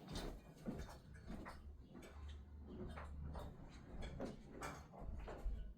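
Faint, irregular light clicks and knocks with a few low bumps: handling noise from moving a heavy key cutting machine and its packaging.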